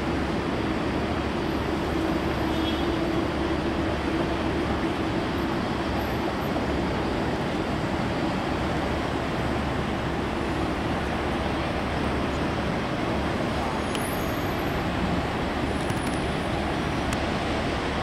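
Steady rumble of a Boeing 747 freighter's jet engines at taxi power, mixed with general airport noise, with a faint low hum held through the first half.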